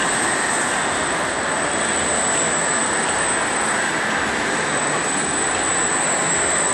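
Steady, unbroken din of a large indoor amusement arcade hall, with a thin high-pitched tone held throughout.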